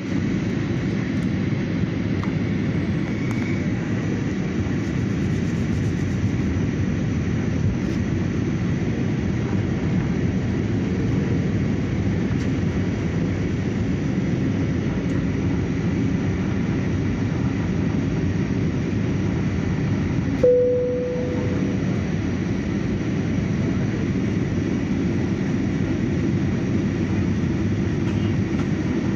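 Airliner cabin noise: the steady low roar of a passenger plane in flight, heard from inside the cabin. About twenty seconds in, a single chime rings out and fades.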